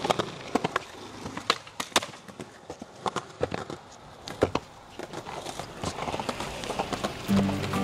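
Skateboarding sounds: wheels rolling on concrete with irregular sharp clacks and pops of the board. Music starts near the end.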